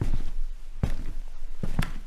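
Footsteps walking on a wooden floor at an even pace, a step a little under every second, each a short knock on the boards.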